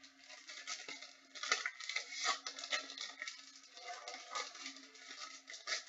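Crinkling and tearing of the plastic and foil wrapping on a box of trading cards being opened, in quick irregular bursts.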